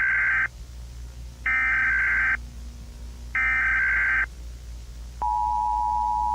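Emergency Alert System tones: three bursts of the SAME digital data header, about a second each with a second's gap between them, the first already under way. About five seconds in, the steady dual-tone EAS attention signal starts. A low hum runs underneath.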